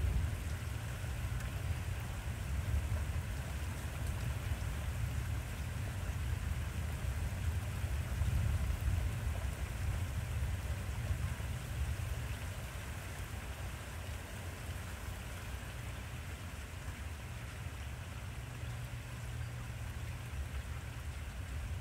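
Steady rain with a deep, continuous low rumble of distant thunder underneath, a little louder in the first half.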